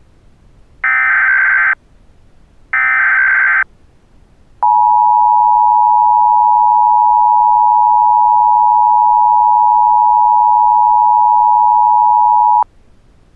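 Emergency Alert System SAME header: two buzzy digital data bursts about a second long each, a second apart, ending a three-burst sequence. Then the steady two-tone EAS attention signal (853 and 960 Hz) sounds for about eight seconds and cuts off sharply, marking the start of a new alert.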